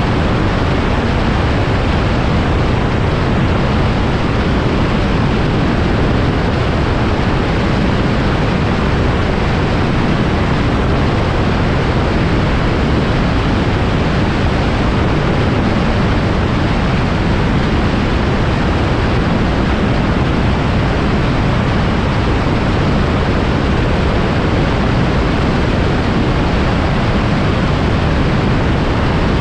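Microlight aircraft in flight: a loud, steady rush of wind and engine noise.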